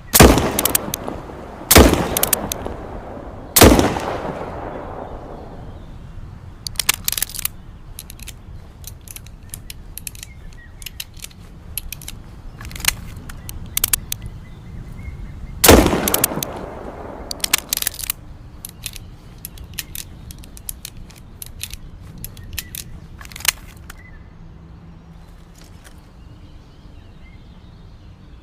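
Smith & Wesson Model 500 revolver, a .500 S&W Magnum, fired four times: three shots about two seconds apart at the start and a fourth about sixteen seconds in, each with a long echoing tail. Smaller clicks and knocks fall between the shots.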